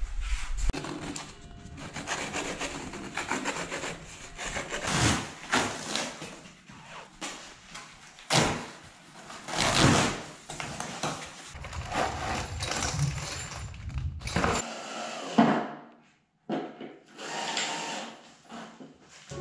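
A flat-pack cabinet being unpacked and assembled: cardboard packaging rustles and tears, and the board panels are shifted and knocked. A cordless drill-driver runs in short spells in the second half.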